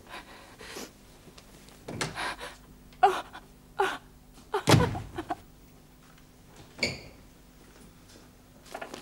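A woman sobbing in short, irregular gasping breaths, some of them voiced.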